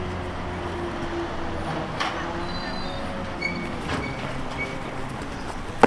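A steady low droning rumble with a few held tones.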